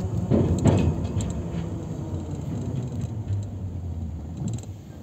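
Car driving, heard from inside the cabin: a steady low road and engine rumble, with a few loud knocks and rattles in the first second.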